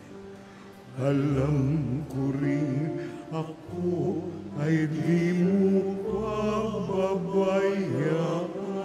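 Slow Tagalog communion hymn: sung phrases with a wavering voice over held low accompaniment notes.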